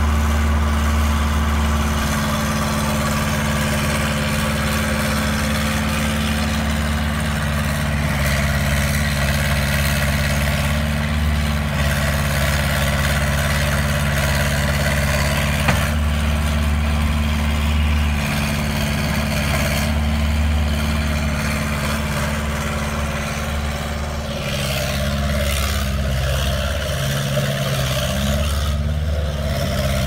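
Bobcat S175 skid-steer loader's diesel engine running steadily as the machine drives about, its engine speed wavering up and down near the end.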